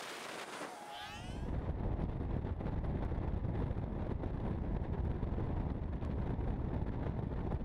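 Wind buffeting an outdoor camera microphone: an irregular low rumble that sets in about a second in, after a brief steady hiss.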